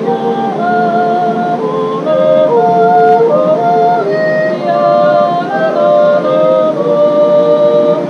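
Swiss folk singing in two-part harmony in yodel style: a slow melody of held notes stepping up and down.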